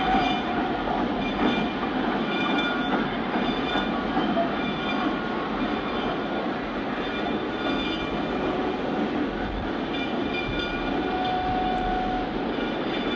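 Diesel train running: a steady, dense rumble and hiss of locomotive and rolling cars, with faint steady tones threaded through it.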